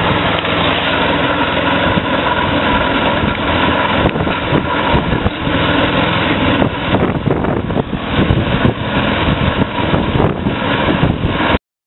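Kohler 6.5 hp petrol engine of a kerbing machine running steadily under load while the machine extrudes a concrete kerb. The sound cuts off suddenly near the end.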